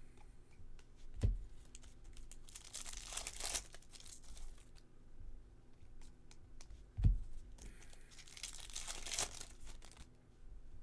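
Baseball card packs being torn open, the wrappers crinkling in two long rustles, with a dull thump twice.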